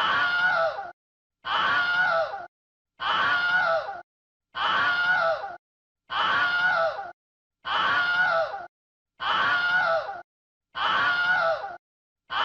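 A human scream sound effect looped: the same scream, about a second long and falling slightly in pitch near its end, repeats every second and a half with dead silence between, about eight times.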